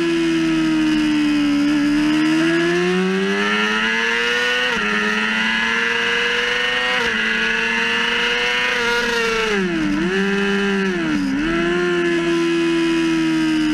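Yamaha YZF-R6 inline-four engine at high revs, heard from a camera on the bike. The revs climb with two sharp drops as it shifts up about five and seven seconds in, hold high, then fall with two short dips as it shifts down near ten and eleven seconds, and settle at steady throttle.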